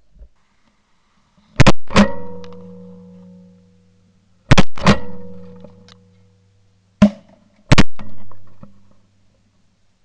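Shotgun blasts at flying Canada geese: six loud shots in three close pairs about three seconds apart. A low ringing tone lingers and fades after each pair.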